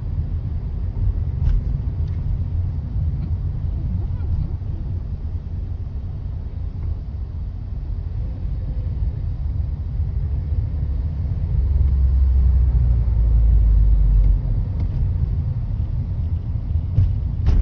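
Low, steady road and engine rumble inside a moving car's cabin, swelling louder for a few seconds past the middle.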